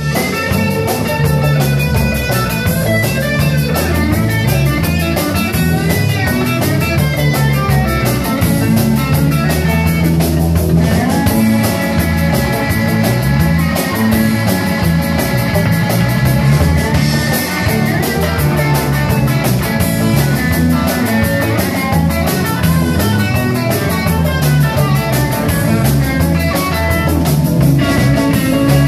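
Live indo rock band playing: amplified electric guitars carry the tune over bass guitar and a drum kit at a steady rock beat.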